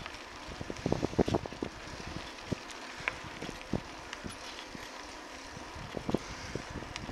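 Bicycle rolling along a paved trail: steady wind and tyre hiss on the microphone, with frequent small rattles and knocks from the bike, a cluster of louder knocks about a second in and again near six seconds.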